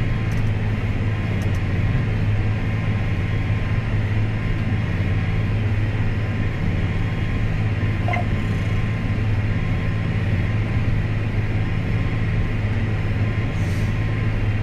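John Deere 8285R tractor's diesel engine running steadily, a low even drone.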